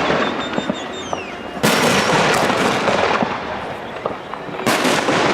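Aerial firework shells bursting in a display: the crackle of an earlier burst dies down in the first second or so, then two more bursts come about three seconds apart, each with a sudden onset followed by a dense crackle.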